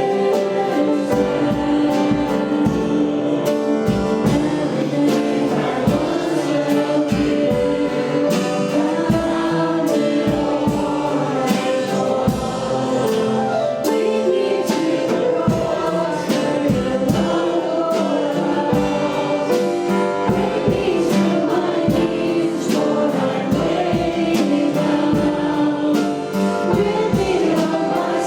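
Congregational worship song: a group of voices singing a gospel-style hymn with a band keeping a steady beat.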